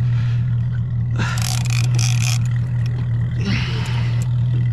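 Boat engine idling with a steady low hum, and two short bursts of hiss over it, about a second in and again near the end.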